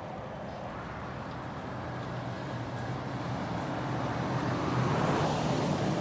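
Car running close by, engine and tyre noise growing louder and peaking about five seconds in.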